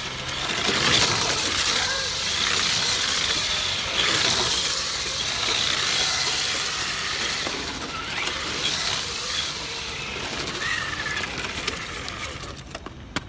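RS4 RC drift car's hard tyres sliding and scraping across a futsal court floor, a hissing that swells and fades as it drifts, with a few short squeals, dying down near the end.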